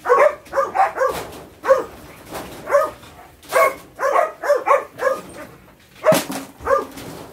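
Dogs barking over and over, a string of short barks, often two or three in quick succession with short gaps between.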